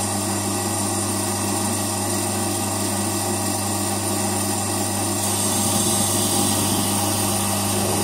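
Electric vacuum pump running with a steady hum while evacuating a small glass vacuum jar; about five seconds in a brighter hiss joins it.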